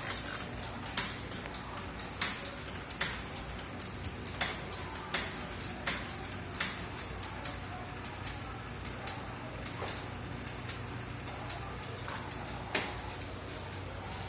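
Analog FM radio with a mechanical dial pointer being tuned: steady hiss with irregular crackling clicks over a low hum.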